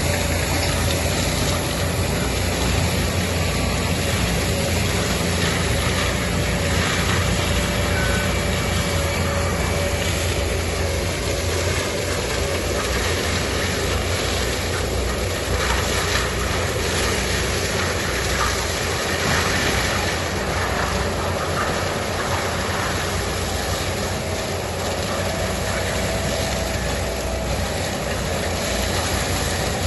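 Forestry mulcher grinding standing eucalyptus trees, its engine running steadily under load with a low, even drone.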